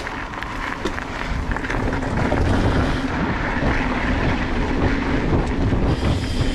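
Mountain bike rolling down a gravel and dirt singletrack: tyres crunching and rattling over loose stones, with a heavy low rumble of wind on the microphone. It grows louder over the first couple of seconds and then holds steady.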